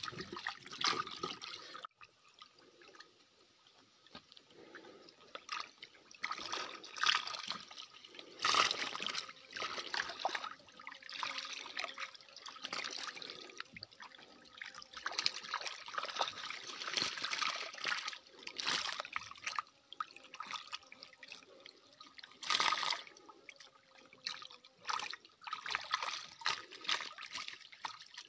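Water splashing and trickling in irregular bursts as a hand net scoops fish out of a wire-mesh fish trap.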